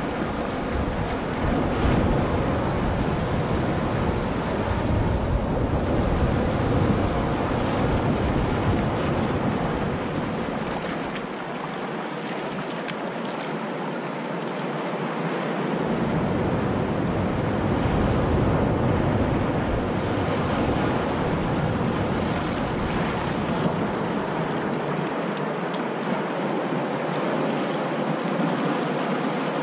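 Sea surf washing up over sand and around rocks in a steady rush of water. Wind rumbles on the microphone at times and drops out twice.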